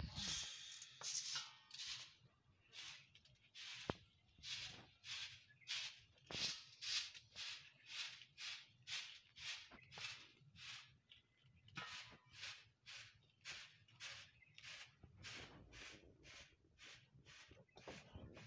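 Small knife cutting through raw bitter gourd held in the hand, a crisp cut about twice a second.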